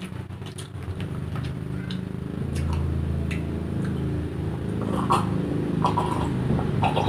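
A low, steady motor hum runs throughout. About five to seven seconds in come short gulping sounds as water is drunk from a glass mug.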